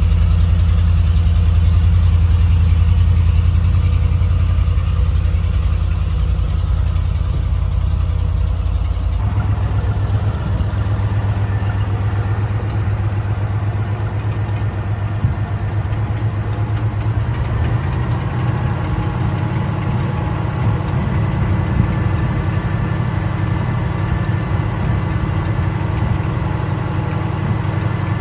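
The 1986 Jeep Grand Wagoneer's AMC 360 V8 running at idle, a steady low engine hum. The sound changes abruptly about nine seconds in and again shifts a little later on.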